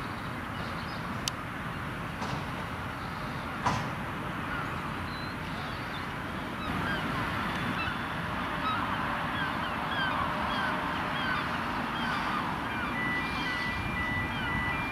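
Birds calling with many short falling cries over a steady outdoor rumble. Near the end a steady two-note electronic warning tone starts up: a level-crossing alarm sounding as a train approaches.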